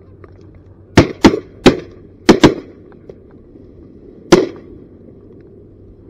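Shotgun fire during a duck hunt: six loud shots within about three and a half seconds, the first five in quick succession with two pairs close together, and a last shot about two seconds later.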